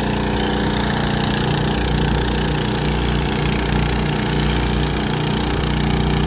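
Small petrol generator engine running steadily at a constant speed.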